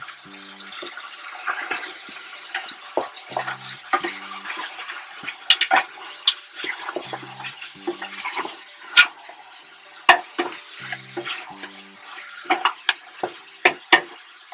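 Beef chunks and pork ribs sizzling as they brown in a stainless steel stockpot, stirred with a wooden spatula that knocks and scrapes against the pot many times.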